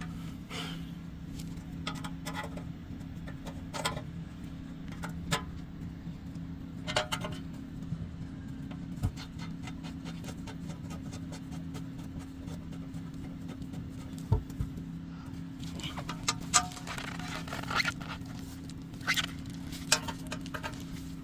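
Hand tools and metal parts clinking, tapping and scraping in short scattered knocks, busier near the end, over a steady low hum.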